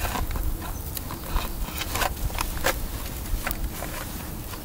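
Steel striker struck repeatedly against chert to throw sparks: a run of sharp, irregular strikes, roughly two or three a second, over a crackling wood fire.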